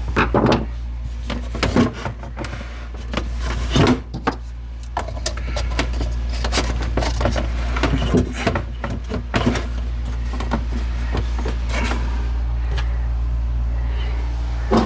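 Dust-collection pipe and chute being pushed and twisted into a tight fit, giving irregular knocks, taps and scraping throughout, over a steady low hum.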